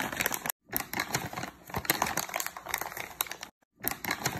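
Dense, irregular crackling and crinkling, with two short dead-silent gaps about half a second in and about three and a half seconds in.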